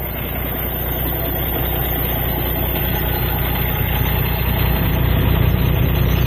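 Semi-truck diesel engine idling steadily, getting gradually louder.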